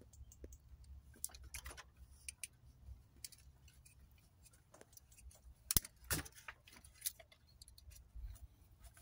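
Faint scattered clicks and taps of multimeter test probes and fingers against a plastic relay connector as the probes are fitted into its terminals, with two sharper clicks about six seconds in.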